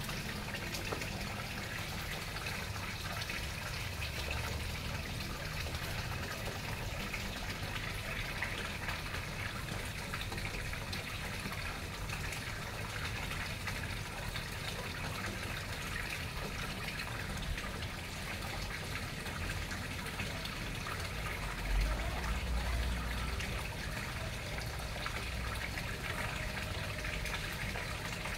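Small garden-pond waterfall spilling from a stone spillway into the pond: a steady splashing rush of falling water, with a brief low rumble about three-quarters of the way through.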